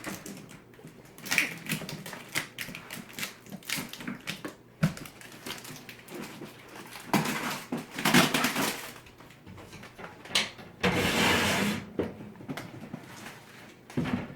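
Handling noise of a shipping tote and box being opened: irregular clacks, knocks and rustling, with a louder rasping noise lasting about a second some eleven seconds in.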